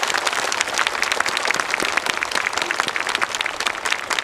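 A large audience applauding: many hands clapping together in a dense, steady patter.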